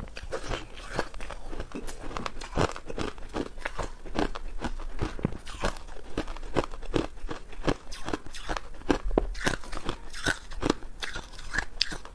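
Crushed ice being chewed close to a clip-on microphone: a dense, irregular run of sharp crunches, several a second.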